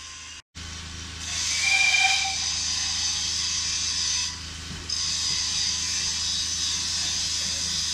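Small saddle-tank steam locomotive hissing steam as it moves slowly beside its train, with a brief high squeal about two seconds in. The hiss drops away for about half a second a little after four seconds.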